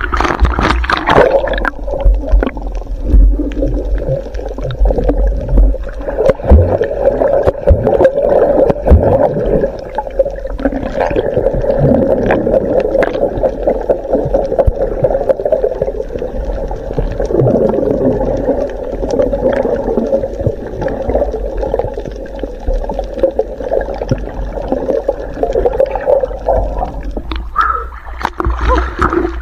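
Water sloshing and gurgling around a camera moving through the sea, muffled as it dips underwater, with scattered small knocks and splashes.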